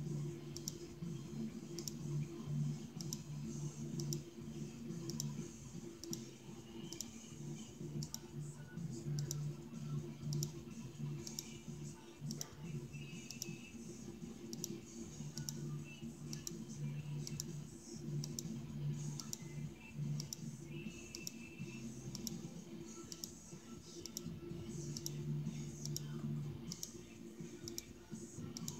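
Faint, regular clicking, about two clicks a second, over a low steady hum.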